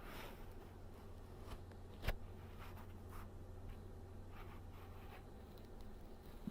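Faint rustling and soft clicks close to a microphone over a steady low hum, with one sharper click about two seconds in.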